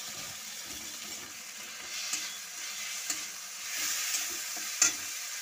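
Chopped onion, tomato and garlic-onion paste sizzling in hot oil in a metal kadai while a metal spatula stirs and scrapes through them, with one sharp knock a little before the end.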